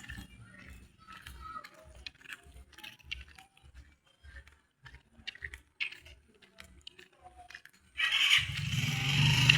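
Faint footsteps on a road, a soft thump about every half second, then about 8 seconds in a motor vehicle's engine comes in suddenly and loudly as it passes close.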